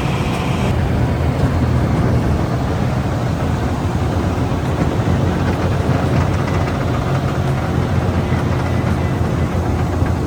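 Wood chipper running steadily, shredding oilseed rape straw into small pieces.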